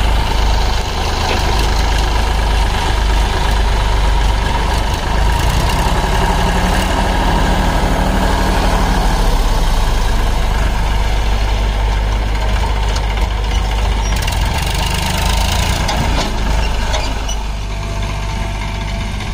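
Massey Ferguson 7250 DI tractor's three-cylinder diesel engine running steadily as the tractor pulls a loaded trailer across soft mud, a little quieter near the end.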